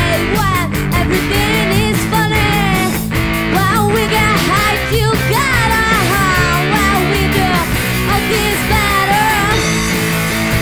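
All-female punk rock band playing a demo recording: distorted electric guitar, bass and drums keeping a steady beat, with a woman singing over them.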